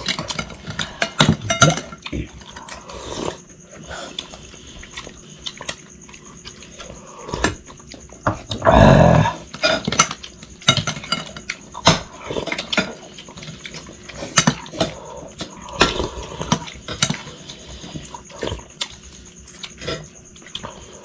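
Noisy eating of a crab and soup meal: spoons, fingers and crab shells clicking and scraping on plates, with slurping and chewing sounds. The loudest, about nine seconds in, lasts around a second.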